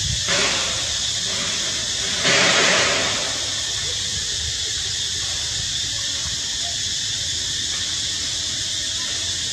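A steady high-pitched hiss, with two short louder rushes of noise: one right at the start and a longer one about two seconds in.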